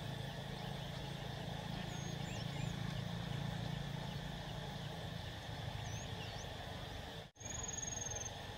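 Open-air ambience on a golf course: a steady low hum and hiss with a few faint, high bird chirps. The sound drops out abruptly about seven seconds in, and a thin high whistle holds for about a second after it.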